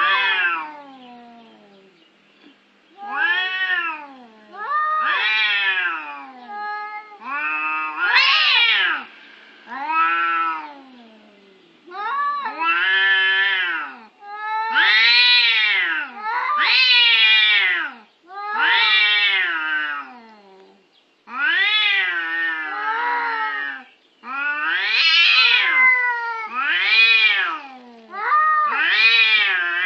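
Two domestic cats caterwauling at each other in a face-off before a fight: long, drawn-out yowls that rise and fall in pitch, one after another with short gaps, coming thicker and closer together later on.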